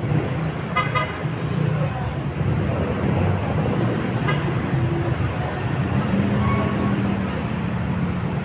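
Roadside traffic: vehicle engines running steadily, with a short double horn beep about a second in.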